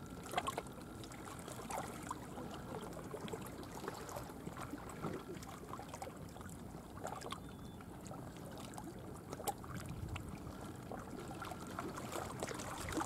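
Small waves lapping gently at the shore, a steady faint wash with scattered small clicks and ticks.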